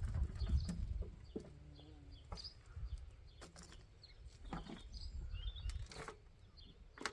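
Hands rummaging through potting compost in a bucket, with scattered soft knocks and rustles; a low rumble fades out about a second in. A few faint bird chirps are in the background.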